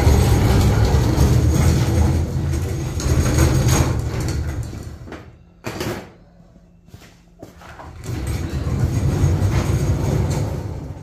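A heavy metal tool box being moved across the floor, rumbling and scraping for about five seconds. There is a short knock near the middle, and a second long rumbling stretch near the end.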